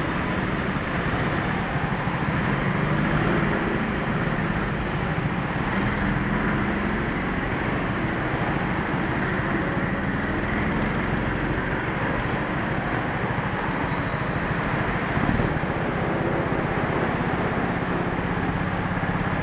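Honda-engined rental go-kart's engine running steadily as the kart is driven round a track, with the rush of road noise over the onboard microphone. Brief high hisses come in twice near the end.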